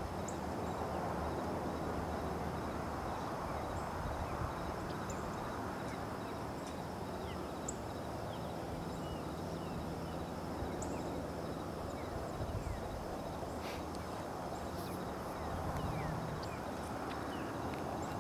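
Outdoor ambience: a steady low hiss, with faint, scattered short high chirps and a thin, steady high tone over it.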